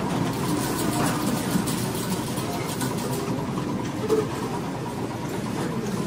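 Casino floor ambience: a steady wash of crowd babble mixed with slot machine sounds, with a short electronic tone about four seconds in.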